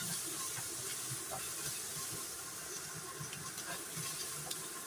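Sliced onions sizzling in hot oil in a non-stick frying pan, a steady hiss, with faint scrapes and taps of the spatula as they are stirred.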